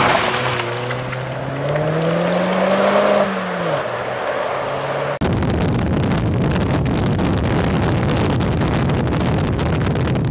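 MINI Cooper convertible's engine revving up as the car accelerates past, its pitch rising and then dropping away. About five seconds in the sound switches abruptly to heavy wind buffeting and road rumble from a microphone riding on the car at speed.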